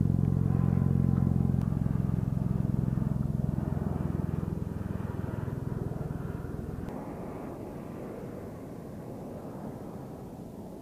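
Engine of a tracked robotic ground vehicle running as it drives over sand, growing steadily fainter.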